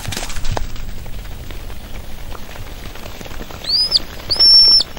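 A shepherd's whistled commands to a working sheepdog: a short high whistle, then a longer held one, then another short one starting at the very end. Before them, a steady rushing noise.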